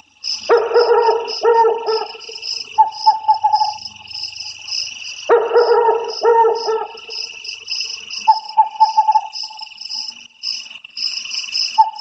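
Animal calls over a steady high chirping chorus. A pair of short barking calls comes twice, about half a second in and again about five seconds in, with brief trilling calls in between.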